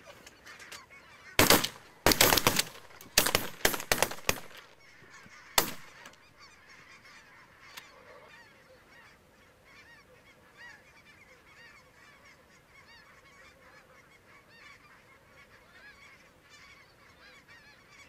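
A rapid volley of about ten shotgun blasts from several hunters, starting about a second and a half in and ending near six seconds. Through it and after it, a large flock of snow geese keeps up a faint, steady chorus of honking calls.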